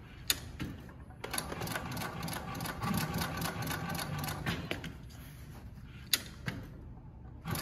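JUKI LU-2810 triple-feed walking-foot industrial lockstitch machine sewing through layered fabric: a fast, even run of needle strokes starts about a second in and stops about five seconds in. Two sharp clicks follow near the end.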